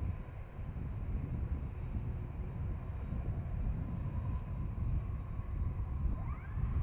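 Jet airliner engine noise at an airport: a steady low rumble with a faint steady whine above it. A short rising whistle comes near the end.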